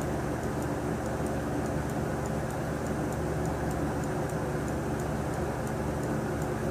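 Steady mechanical hum with faint, evenly spaced ticking over it, unchanging throughout.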